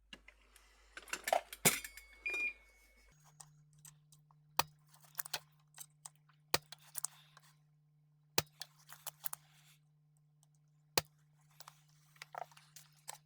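Small tools and parts clinking and clicking on an electronics repair bench during desoldering, with a short electronic beep from bench equipment about two seconds in. A steady low hum starts just after the beep and runs on under sharp single clicks about every two seconds.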